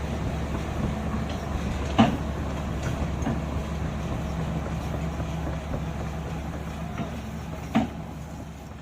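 Small electric motors and plastic gearing of RC toy construction vehicles running with a steady hum, broken by a few sharp plastic clicks and knocks, and fading away near the end.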